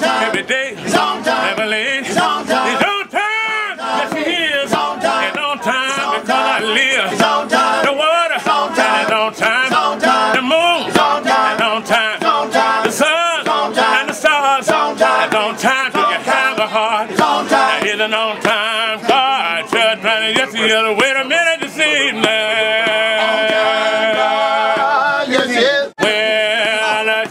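Music with a man singing in a wavering voice. Near the end he holds long notes, and the sound breaks off briefly just before the end.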